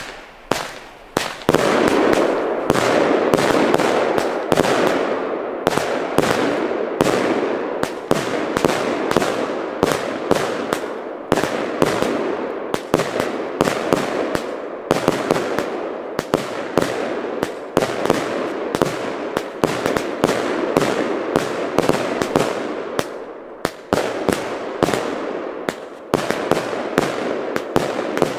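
A consumer firework battery firing: a few pops, then from about a second and a half in a rapid, unbroken sequence of launches and bursts with rushing noise between the shots.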